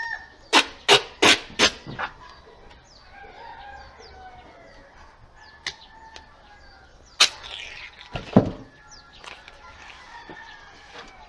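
Duct tape pulled off the roll in four quick, sharp tugs about half a second to two seconds in, and two more sharp noises later on. Chickens cluck faintly in the background.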